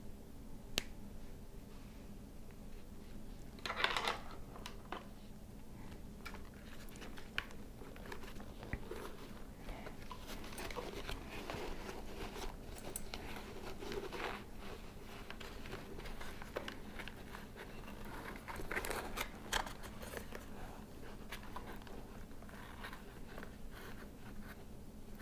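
Hands handling the inside of a Shoei Neotec 2 modular motorcycle helmet: the fabric liner and padding rustle and small plugs and wires click and scrape as the intercom's speaker and microphone leads are worked into place, with louder rustling about four seconds in and again near the three-quarter mark.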